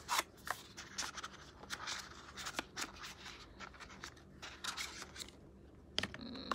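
A small cardboard cosmetics box being handled and opened by hand: a run of small scrapes, taps and rustles that thins out after about five seconds.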